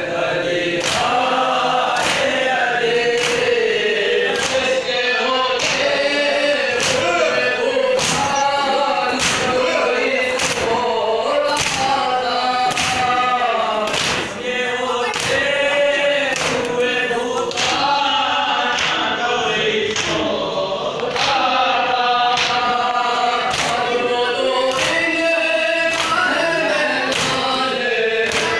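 A noha, the Shia mourning lament, led by one voice through a microphone and chanted by a group of men, with the men striking their chests (matam) in unison about once a second.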